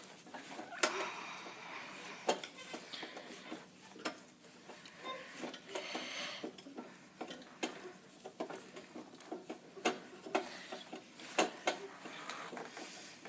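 Adjustable wrench working a tight lock nut: irregular metallic clicks and clinks with short bouts of scraping as the wrench is fitted and turned.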